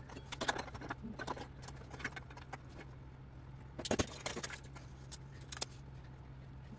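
Faint metallic rattles and clicks of a roller chain and a steel bracket being handled and positioned by hand, with a louder clatter about four seconds in.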